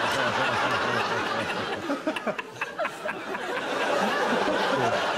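Studio audience and panel laughing hard: a dense, continuous mass of many people laughing at once.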